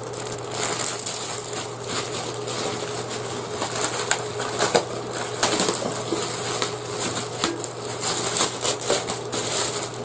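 Packaging wrap crinkling and crackling in quick, irregular handfuls as a heavy iron frying pan is unwrapped.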